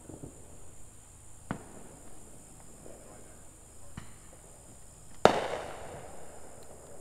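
Fireworks going off: a sharp bang about a second and a half in, another at about four seconds, and a much louder bang about five seconds in that rumbles away over about a second.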